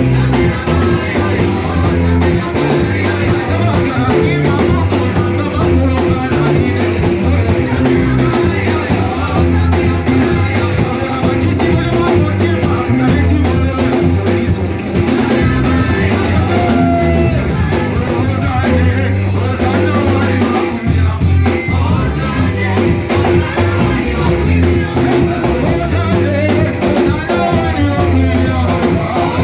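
Live church praise band playing an upbeat worship song with a drum kit, and voices singing along.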